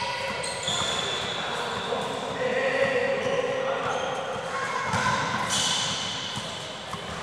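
Indoor futsal game on a hard court: the ball thudding on kicks and bounces, short high sneaker squeaks and players shouting, all echoing in a large hall.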